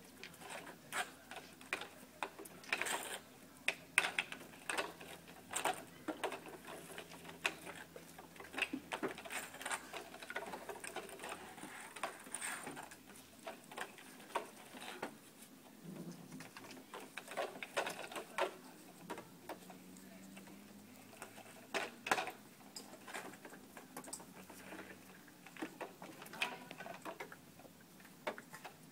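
Irregular light taps, knocks and scrabbling of puppies' paws on a wooden ramp and wooden play boxes.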